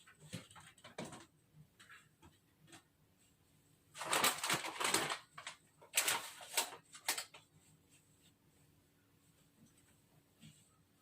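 Laundry being handled and loaded into a clothes dryer: light clicks and fabric rustling, with two louder bursts of rustling about four and six seconds in.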